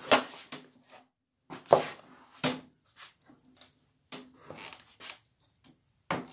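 Irregular metallic clunks, knocks and scrapes as a Fordomatic two-speed automatic transmission case and its parts are handled and turned on a wooden bench. The sharpest knock comes about a second and a half in.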